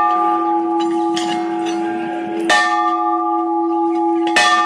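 Temple bell rung by hand, ringing on steadily; it is struck again about two and a half seconds in and once more near the end, each strike renewing the ring.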